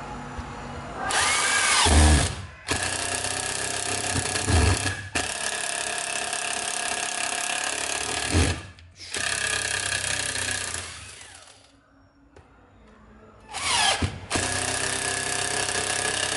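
Cordless drill-driver boring into a wooden block, its motor running in several bursts with short stops. There is a longer pause about two thirds of the way through before it runs again.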